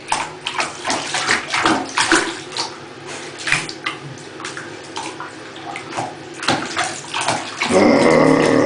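Water running from a bath tap into a tub while a spaniel puppy drinks at the stream, with irregular splashing and lapping. The sound grows louder and rougher near the end.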